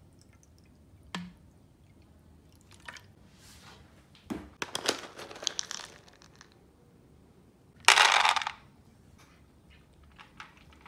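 Dry cat kibble rattling as it is scooped from a plastic storage box, then poured into a plastic feeding bowl with a loud clatter about eight seconds in. A few small crunching ticks from cats eating the kibble follow near the end.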